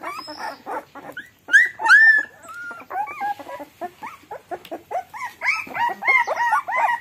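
Litter of young puppies whining and squealing in many short, high cries that overlap, with two louder, longer whines about a second and a half in and a dense run of cries near the end.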